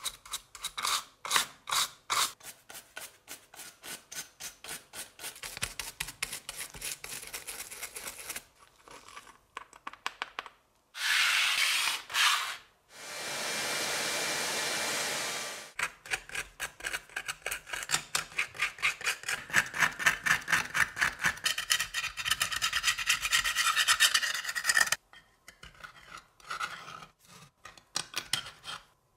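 Wire brush scrubbed rapidly back and forth over the rusty tin-plate hull of a toy boat, scouring off rust in quick rhythmic strokes. Near the middle come two short noisy bursts and a few seconds of steady hiss. Near the end a metal pick scrapes rust from a seam in sparse scratches.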